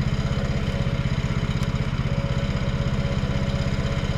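The 14 hp Kohler single-cylinder engine of a Woodland Mills HM126 sawmill running steadily at an even speed, with no cut under way.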